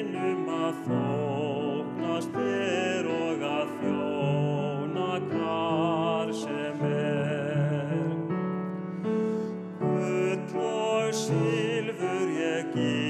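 A man singing solo in a trained voice with a clear vibrato, held notes over a steady instrumental accompaniment.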